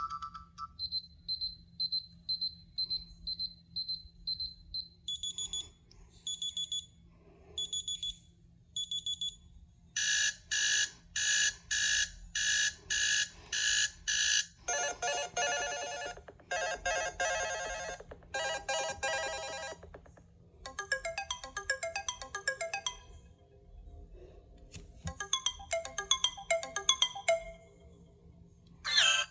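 A Lenovo tablet's alarm tones played one after another through its speaker. First a quick run of high beeps, then a chime repeating about once a second, then faster electronic pulses. After that come several short melodic ringtone-like tunes, each a few seconds long with brief gaps between them.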